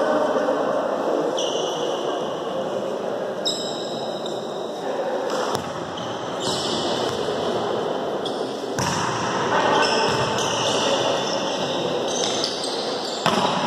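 Volleyball being struck during play in a large echoing gym: several sharp smacks of hands on the ball, a few seconds apart, with the high squeak of court shoes between them.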